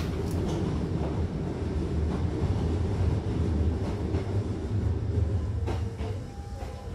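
Hankyu Kyoto Line electric train running, heard from inside the carriage: a steady rumble of wheels on track with a few sharp clicks. About six seconds in it grows quieter and a faint wavering squeal comes in as the train slows.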